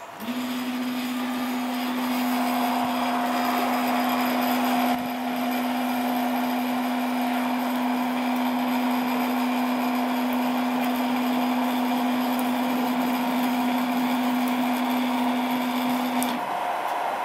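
3D printer's Y-axis stepper motor, driven by a TMC2209, making a sensorless homing move: a steady single-pitch whine that rises quickly at the start, holds for about sixteen seconds, then cuts off suddenly when the carriage reaches the end of the axis and the driver senses the stall.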